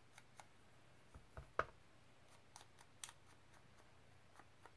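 Faint, scattered soft taps and scuffs of a mini ink blending tool being dabbed around the edges of a small fabric tag, with a slightly sharper tap about a second and a half in.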